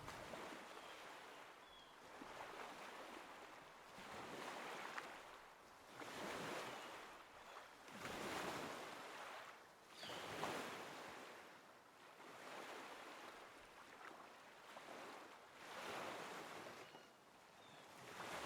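Faint waves washing on a shore, the surf swelling and fading about every two seconds.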